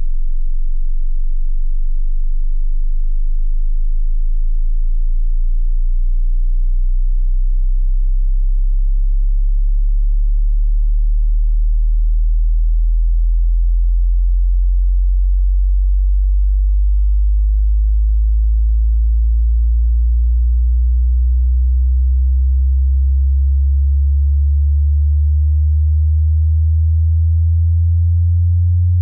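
Loud pure sine test tone for a hearing test, starting very deep and rising slowly and steadily in pitch: a frequency sweep.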